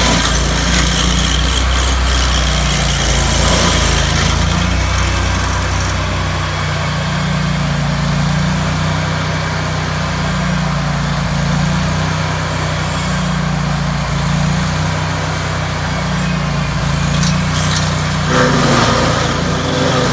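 Stump grinder engine running steadily under load, its pitch wavering, as the cutting wheel grinds down tree roots.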